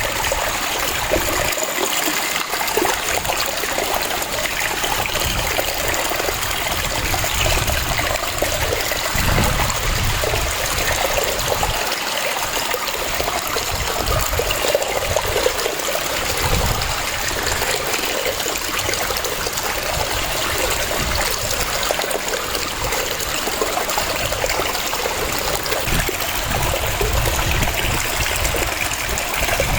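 Waterfall: falling water rushing steadily and without a break.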